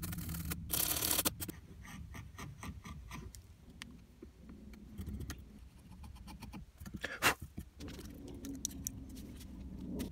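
Small wire brush scrubbing back and forth along a crack in old oak, with quick scratchy strokes through the first few seconds that then thin out. Fainter handling sounds follow, with one sharp click about seven seconds in.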